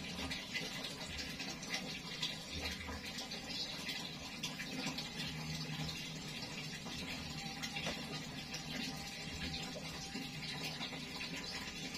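Faint, steady water sounds from bath water in a plastic tub holding a wet cat, over a low background hiss, with no distinct knocks or calls.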